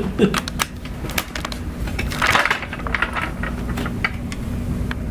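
A knock right at the start, then scattered light clicks and clinks, with a short rustle about two seconds in, over a steady low hum.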